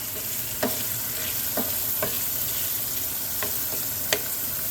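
Meat browning in a frying pan, sizzling steadily, with a utensil knocking against the pan about five times as it is stirred.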